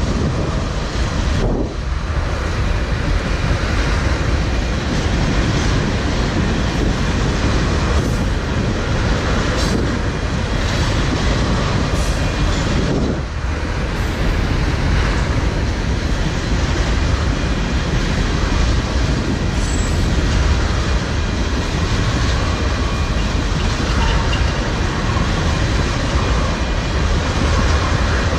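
Freight train of ethanol tank cars rolling past at speed: a loud, steady noise of steel wheels running on the rails.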